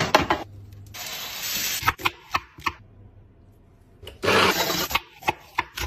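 Quickly cut kitchen sounds of food preparation: short stretches of rushing noise broken by sudden stops, with scattered clicks and knocks of trays, utensils and containers.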